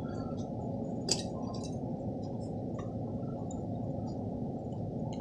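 Faint, scattered clicks of small repair tools against the iPhone's internal parts, with one sharper click about a second in, over a steady low hum.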